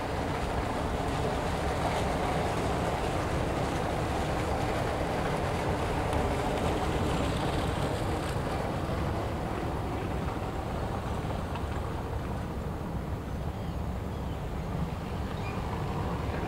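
Steady low rumble with a hiss of wind, with no distinct events and no change in level.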